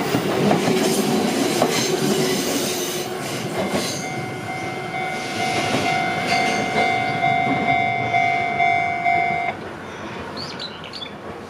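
Electric train running through a level crossing, its wheels clicking over the rail joints as the rumble fades away. The crossing's electronic warning bell rings in an even, pulsing rhythm and cuts off suddenly near the end, followed by a few high chirps.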